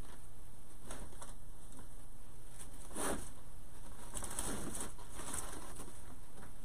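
Fabric ribbon loops rustling as hands fluff and arrange the bows on a grapevine wreath, in soft bursts about three seconds in and again from about four to five and a half seconds, over a steady low hum.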